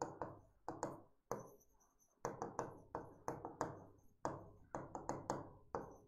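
Stylus tapping and scraping on an interactive display's screen during handwriting: a faint, quick, irregular run of short taps, with a brief pause a little after the first second.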